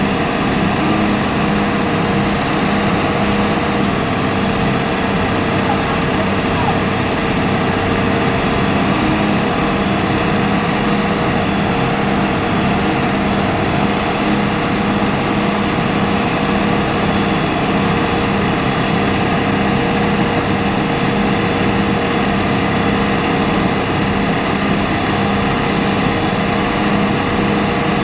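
Hitachi ZX200-5 excavator's diesel engine running steadily under hydraulic work, with a constant drone.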